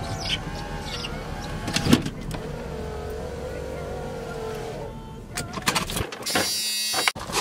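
Inside a pickup's cab: a power-window motor whines for about two seconds over the low running of the vehicle, with clicks and knocks from the controls around it. A brief high ringing sound comes near the end.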